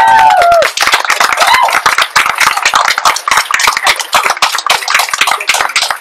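A group of women's voices holds the song's last note, which stops under a second in, then hand clapping, quick and uneven, runs on.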